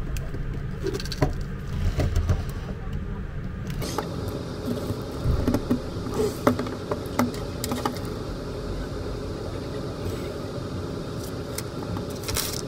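Hollow plastic toy parts being pressed together and handled, giving light scattered clicks and knocks, with a brief clatter near the end. A steady low hum runs underneath.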